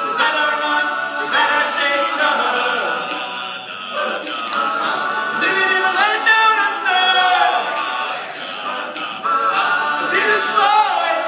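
All-male a cappella group singing in close harmony, with no instruments.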